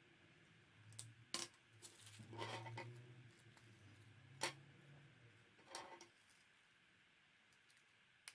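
Faint tabletop handling of a paper craft flag and a felt-tip pen: a few sharp clicks and taps, the loudest about four and a half seconds in, with paper rustling for about a second between two and three seconds in.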